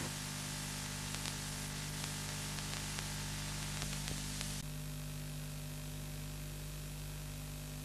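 Steady hiss with a low hum from the idle audio channel of a recorded satellite TV feed, with a few faint clicks. About four and a half seconds in, the hiss abruptly turns duller, as the feed changes.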